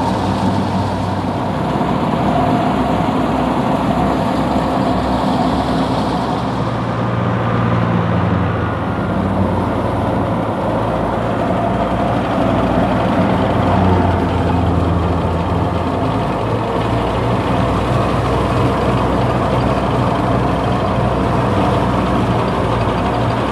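Tractor-driven wheat thresher running steadily while wheat sheaves are fed into it. The spinning threshing drum and belt pulleys make a loud, continuous mechanical drone over the Fiat 480 tractor's diesel engine working under load.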